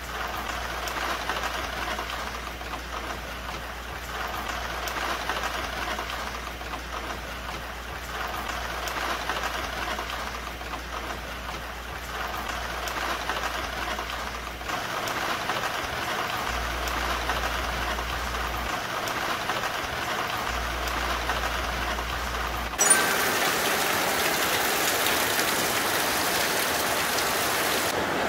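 Heavy rain falling steadily, with a low hum underneath in the first half. About 23 seconds in, the rain noise turns abruptly louder and brighter, with a short click at the change.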